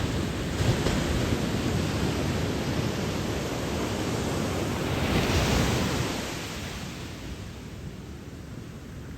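Ocean waves washing on a shore, one wave surging louder about five seconds in and then drawing back.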